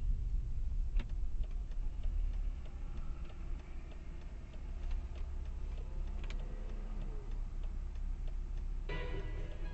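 Car idling at a stop, heard from inside the cabin as a low steady rumble with scattered faint ticks. Background music comes in near the end.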